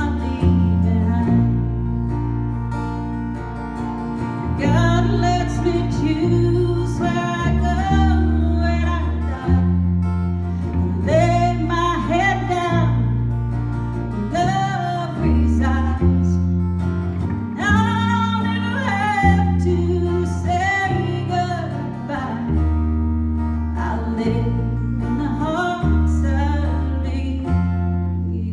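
A woman singing a slow song to her own strummed acoustic guitar, the chords changing every second or two.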